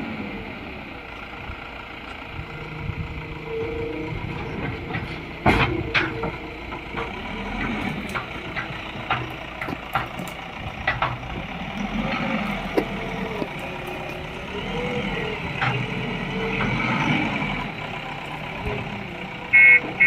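JCB 3DX backhoe loader running steadily, with a series of sharp knocks and clanks while it works. Near the end a reversing alarm starts beeping rapidly.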